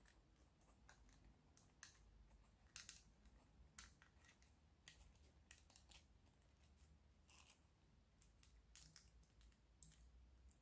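Faint, scattered clicks and ticks of small 3D-printed plastic puzzle pieces being handled and pushed together by hand, a dozen or so at irregular intervals over near silence.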